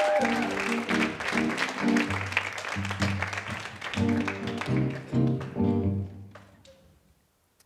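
Live band with keyboard and guitar playing a short rhythmic walk-on riff of chords and bass notes over audience applause. It dies away about six seconds in.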